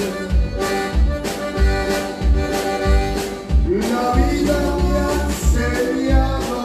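Live conjunto band playing: button accordion over electric bass, guitar and drum kit, with a steady kick-drum beat a little under twice a second.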